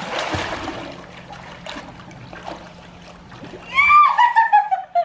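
Pool water splashing as a toddler kicks and paddles across the pool, loudest in the first second, then softer sloshing. Near the end comes a loud, high-pitched exclaimed cheer that slides down in pitch.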